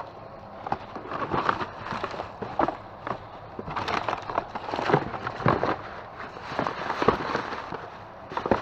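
Hands rummaging through trash, crinkling and rustling, with many irregular sharp clicks and knocks as boxes and other items are moved and handled.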